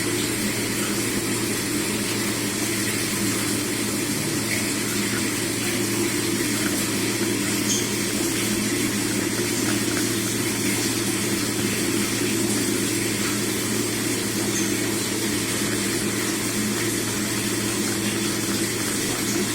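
A steady mechanical hum with a constant low drone and a faint even hiss, unchanging throughout.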